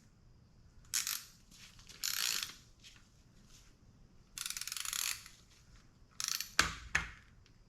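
Click-type ratchet torque wrench ratcheting in short runs of rapid clicks as it is reversed and swung back on the main cap bolts, with a heavier knock near the end.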